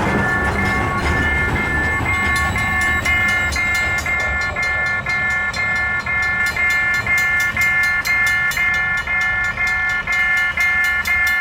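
Level-crossing warning bell ringing in an even repeating pattern, about three strokes a second. Under it, the low rumble of a passing freight train fades out over the first few seconds.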